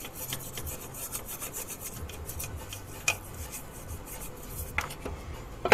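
Toothbrush scrubbing carbon buildup off the inside of a Subaru EJ engine's throttle body bore and throttle plate: quick, repeated bristle strokes on metal, with a couple of sharper clicks about three seconds in and near the end.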